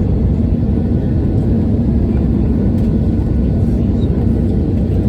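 Cabin noise inside an Airbus A320neo: a steady, loud low rumble of engines and rushing air.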